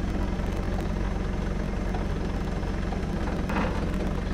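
Toyota forklift's engine running steadily, an even low drone. A brief higher sound rises over it about three and a half seconds in.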